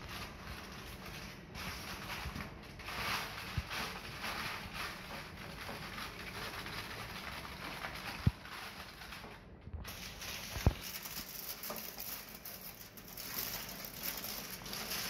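Aluminium foil crinkling and rustling as it is pressed into a metal tray and folded at the corners, with two sharp knocks about halfway through.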